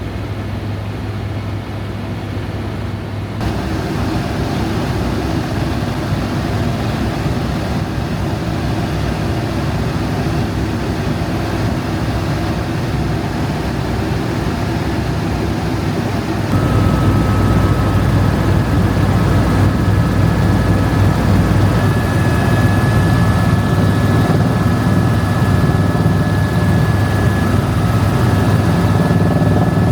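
Helicopter in flight: steady engine and rotor noise with a low hum. The sound shifts abruptly twice, getting louder about three seconds in and again about sixteen seconds in.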